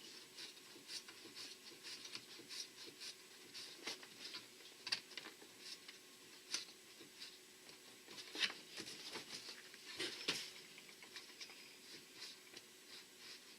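Faint, irregular small clicks and scrapes of a wing nut being turned by hand on a plastic rod, drawing a kayak transducer mount up snug.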